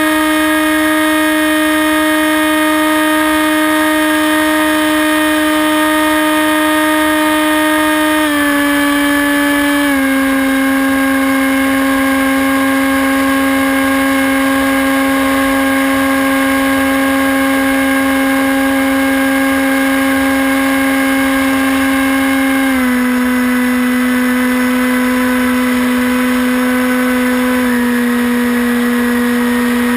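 Brushless electric motor and propeller of a Hawk Sky RC plane whining steadily in flight, heard from the plane's onboard camera with air rushing past. The pitch steps down slightly about eight seconds in, again about ten seconds in, and twice more near the end, as the motor slows.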